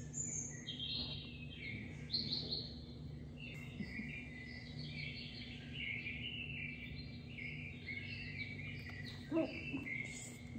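Continuous high chirping like small birds singing, over a steady low hum.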